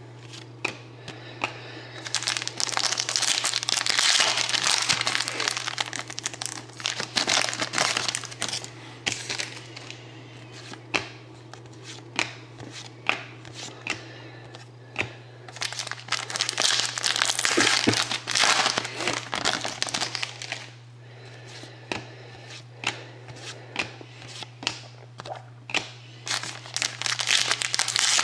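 Trading-card pack wrappers crinkling and being torn open, with cards handled in between; two longer spells of crinkling, one early and one past the middle, and scattered light clicks and taps between them.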